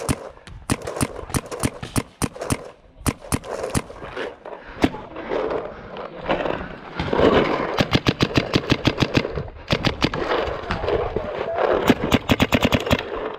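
Paintball markers firing in rapid strings of sharp pops, several shots a second, with the densest volleys in the middle and near the end.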